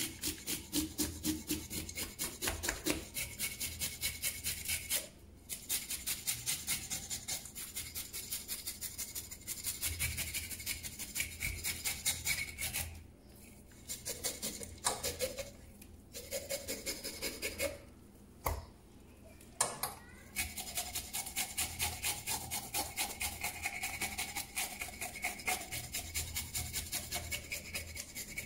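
Fish scaler scraping scales off a whole fish in rapid rasping strokes, a few a second, with several short pauses.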